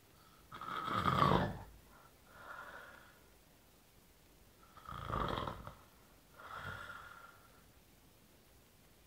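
A man snoring: two loud snores about four seconds apart, each followed about a second later by a quieter one.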